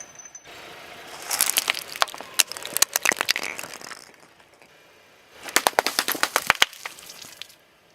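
Brittle things cracking and crackling as a car tyre crushes them, in two bursts of rapid sharp cracks: one starting about a second in, the other a little past the middle.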